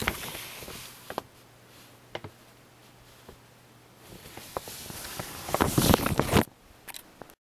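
Handling noise from a handheld camera: rustling and scattered knocks as it is moved about. It is loud at the start and again for a couple of seconds past the middle, with a faint low hum in the quieter stretch between, and it cuts off just before the end.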